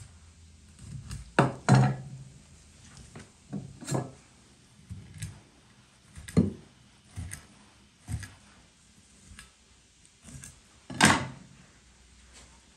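Cleaver and knife knocking against a wooden cutting board as a large fish is cut up: a string of separate thuds and taps, the two loudest about two seconds in and near the end.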